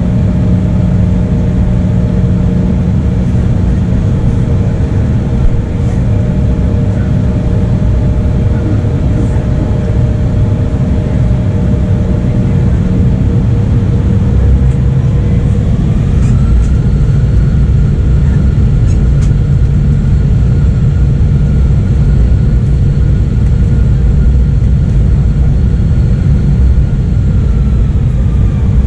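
Cabin noise inside an Embraer E175 airliner: a loud, deep rumble from its GE CF34-8E turbofan engines with steady hums under it. About halfway through a higher whine rises, holds level, and drops away near the end.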